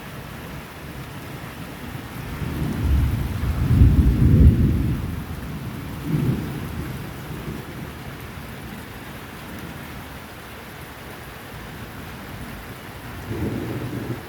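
Thunder rumbling over steady rain. The deepest, loudest roll comes about three to five seconds in, a shorter rumble follows around six seconds, and another starts near the end.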